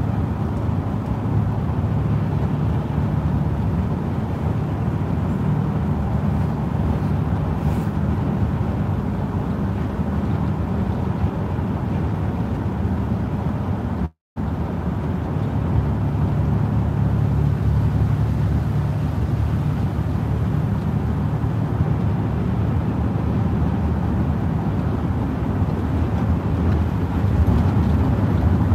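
Steady road noise of a vehicle cruising at highway speed on wet pavement, heard from inside the cab: a low engine and road drone under a hiss of tyres on the wet road. The sound drops out completely for a split second about halfway through.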